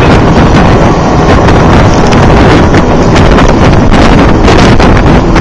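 Strong wind buffeting the microphone on an open pontoon boat: a loud, steady rumble with no break.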